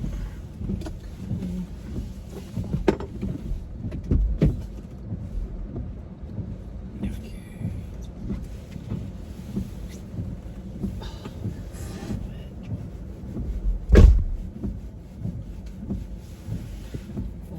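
Low, steady rumble inside a car, with a few short knocks and one loud thump about fourteen seconds in.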